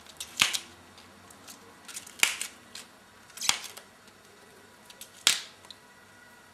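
Tough outer leaves of a Roman artichoke snapping off one by one as they are pulled back by hand: four sharp snaps a second or two apart, with small crackles between.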